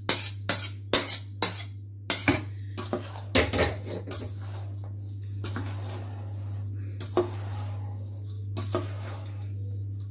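Stainless-steel ladle knocking and clinking against steel pots: a quick run of sharp knocks over the first few seconds, then the ladle scraping and stirring through a dry flour-and-sugar mixture with occasional clinks. A steady low hum runs underneath.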